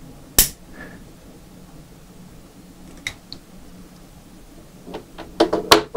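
A few sharp clicks in a quiet room: one loud click about half a second in, a faint one around three seconds, and a quick run of clicks and taps near the end.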